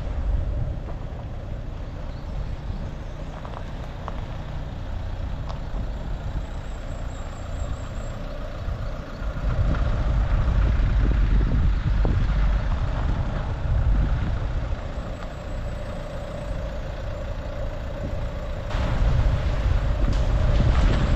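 A car on the move: steady engine and road rumble with a low drone, growing louder about halfway through and again near the end.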